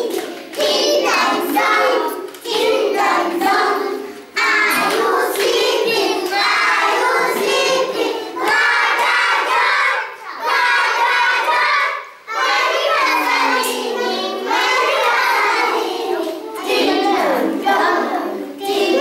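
A class of young children singing together in unison, in phrases of a few seconds with short breaks between them.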